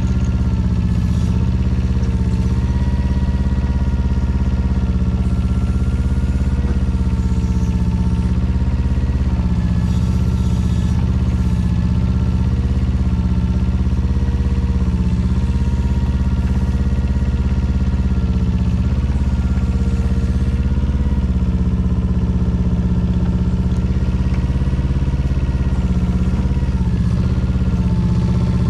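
2004 Daewoo Solar 010 mini excavator's small Yanmar engine running steadily, with a whine that wavers up and down in pitch as the hydraulic control levers are worked.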